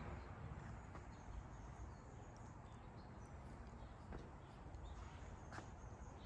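Faint outdoor ambience with a few scattered, distant bird chirps and one soft click about five and a half seconds in.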